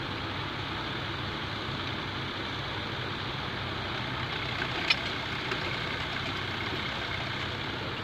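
Tractor engine running steadily as it pulls a plough along the furrow. A single sharp click about five seconds in.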